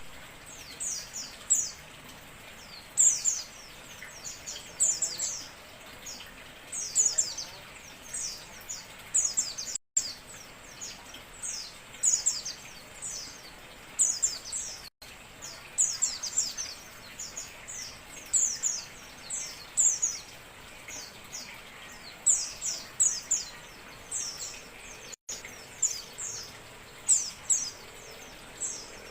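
White-eye (pleci) calls used as a bird-trapping lure: short, high chirps that slide downward, coming in quick bunches every second or two over a steady hiss. The sound cuts out for an instant three times.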